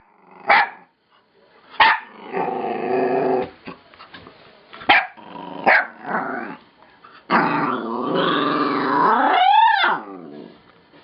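Rat terrier puppy vocalising: four short sharp yips broken up by rough growly grumbles. Then comes a long growling yawn that ends in a whine rising and falling in pitch.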